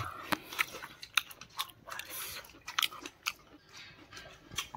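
A person chewing and biting mouthfuls of mutton curry close to the microphone: a scatter of small sharp clicks and smacks from the mouth.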